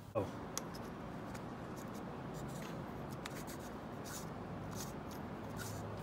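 Spray nozzle being screwed onto the end of a garden hose by hand: faint scraping and small scattered clicks of the fittings, over a steady low hum. A brief falling squeak sounds right at the start.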